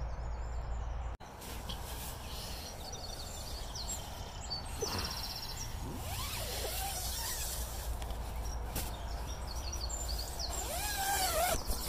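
Steady rumble of distant motorway traffic with birds chirping and calling over it. The sound drops out for a moment about a second in.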